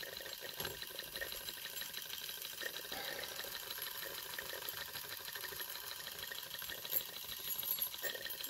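Small live-steam model traction engine running, its brass drive gear meshing with the rear-wheel gear in a quiet, steady mechanical whirr with light ticking. The gear now drives properly after washers were added to bring it closer.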